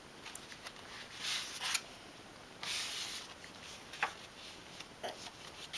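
Pages of a children's picture book being turned by hand: two soft paper rustles, then a couple of light taps near the end.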